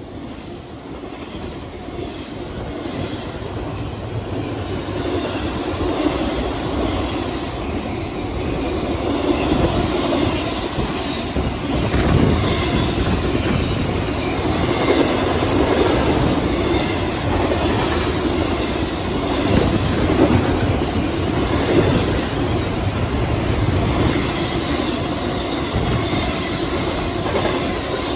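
Cars of an intermodal freight train rolling past, the steel wheels clacking over the rail joints in a steady rumble. It grows louder over the first several seconds, then holds steady.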